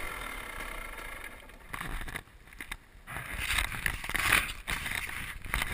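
The single-cylinder two-stroke engine of a 2012 KTM 300 XC-W running at low speed as the bike rolls slowly over dirt. The engine goes quiet briefly about two seconds in, then irregular rattling and rough noise pick up again.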